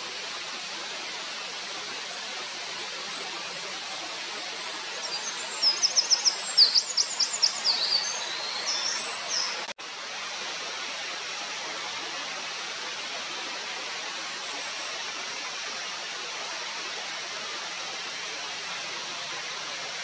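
Eurasian wren singing a loud, rapid string of high, sharp notes and trills for about four seconds, starting about five seconds in and cutting off suddenly. Behind it, a steady rush of running water.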